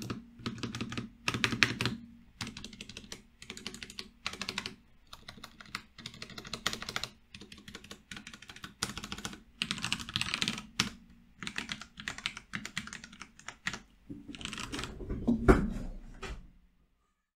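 Typing on a Cooler Master MasterKeys Pro S RGB mechanical keyboard with freshly lubed switches and stabilizers: runs of quick key clacks broken by short pauses, with a louder burst near the end.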